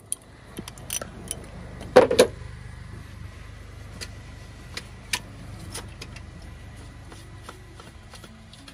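Metal hand tools clattering, a short burst of clanks about two seconds in, then scattered light clicks and scrapes as the plastic oil filter housing cap on a Paccar MX-13 engine is twisted off by hand, over a steady low hum.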